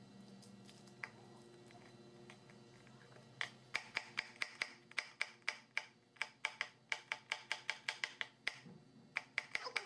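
Kitchen knife chopping garlic cloves on a cutting board: a fast run of sharp taps, about three or four a second, starting about three and a half seconds in after a quiet stretch, with a brief break shortly before the end.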